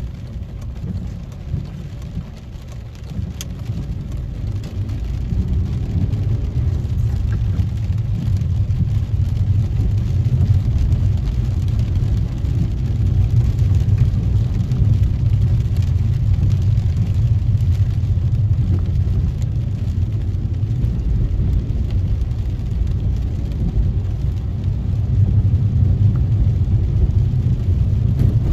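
Inside a car driving on wet roads: a low engine and tyre rumble that gets louder over the first ten seconds as the car picks up speed, then holds steady, with a few faint raindrop taps on the windscreen.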